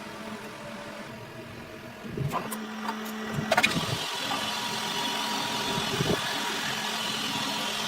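Metal lathe running with a steady motor hum, a couple of sharp clicks, and from about halfway a louder steady hissing noise of metal being cut.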